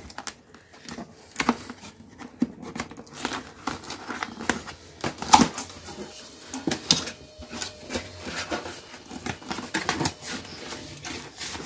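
Cardboard box being opened by hand: flaps pulled and cardboard and packing rustling, scraping and knocking in irregular bursts, with one sharper knock about five seconds in.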